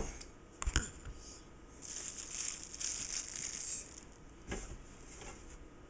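Chef's knife cutting through a chilled log of cookie dough full of chocolate chunks and toasted almonds, knocking sharply on the wooden cutting board a few times. Between the knocks there is a stretch of rustling.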